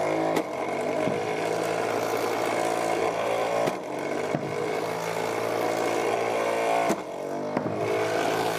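Flywheel shooter's electric motor and 96 mm wheel whining steadily at about 1100 RPM while three whiffle balls are launched. Each shot gives a pair of sharp knocks less than a second apart, and then the whine dips and climbs back up as the flywheel recovers speed.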